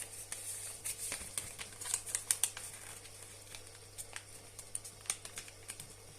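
A sheet of paper being folded and creased by hand: irregular crisp rustles and sharp little clicks as it is pressed flat along the folds, thickest about two seconds in.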